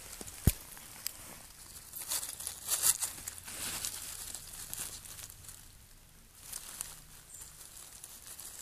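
Dry fallen leaves crackling and rustling irregularly as a hand pushes through the leaf litter, busiest around two to three seconds in, with one sharp knock about half a second in.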